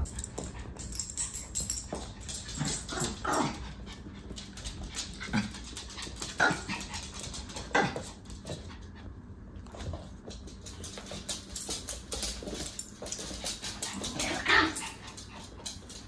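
Two small dogs play-fighting, giving short yips and whimpers, the loudest about fourteen and a half seconds in, over frequent light clicks of their claws scrabbling on a wooden floor.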